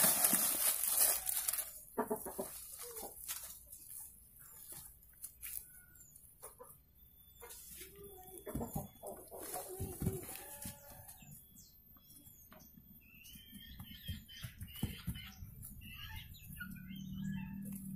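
Loose dry soil poured and crumbled by hand over bonsai roots, a rushing hiss for the first couple of seconds, then soft scrapes and pats as the soil is pressed down. Chickens cluck and birds chirp in the background, and a low steady tone begins near the end.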